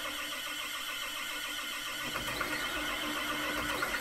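CAT C6.4 ACERT diesel being turned over by its electric starter without firing: a steady starter whine with an even rhythmic pulse. It is a long crank because the fuel system is unprimed, with air drawn into the low-pressure side past the leaking fuel primer pump's O-ring.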